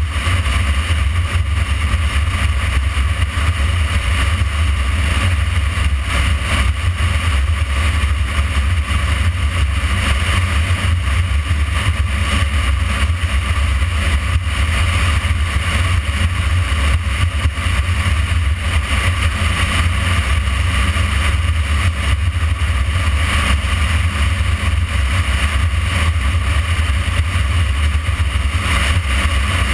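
Motorcycle riding at a steady cruising speed: a constant low wind rumble on the microphone mixed with engine and tyre noise, unchanging throughout.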